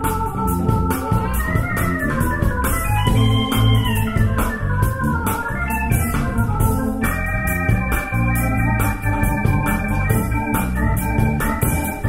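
Music played back over hi-fi loudspeakers and heard in the room: sustained keyboard chords over a bass line and a steady beat.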